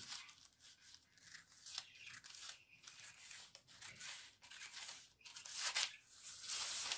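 Large dressmaking scissors cutting through several layers of folded pattern paper: a run of crisp snips with paper rustle, loudest near the end.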